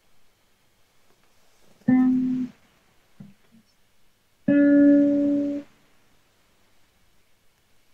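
Single plucked guitar notes from a beginner's whole-note exercise, heard over a video call. Two separate notes about two and a half seconds apart, each cut off short, and a third starting at the very end.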